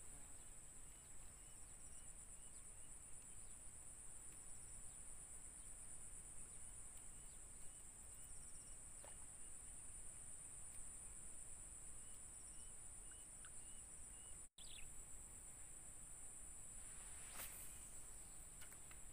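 Steady high-pitched drone of insects, with faint small chirps repeating about twice a second for stretches. The sound drops out for an instant about three-quarters of the way through, and a short rustle follows near the end.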